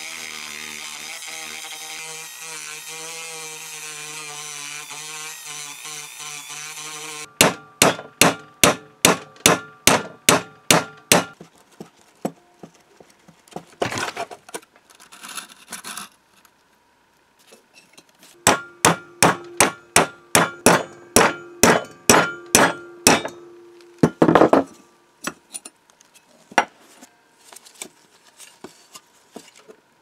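A handheld rotary tool runs steadily with its bit against a rusted screw in a cast iron lock case, then stops abruptly. Two long runs of sharp, ringing hammer blows on metal follow, about four a second, with scattered single knocks between them.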